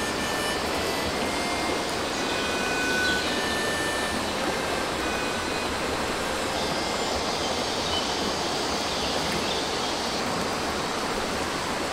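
Steady rushing of a forest stream, with a few brief high whistles over it.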